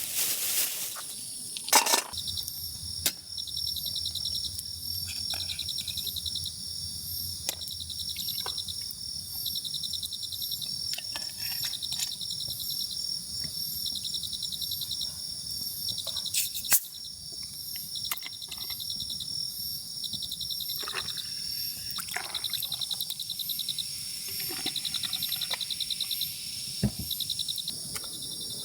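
Crickets and other insects chirping, with a steady high buzz under trilled chirps that come in short, evenly repeated bursts. A few sharp cracks and knocks break in now and then.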